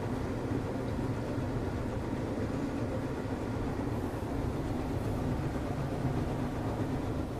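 Samsung washing machine running, a steady low mechanical hum and drum noise.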